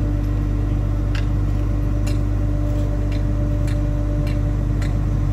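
A heavy engine running steadily at constant speed: a low, even hum with a steady tone over it, and a light tick about twice a second.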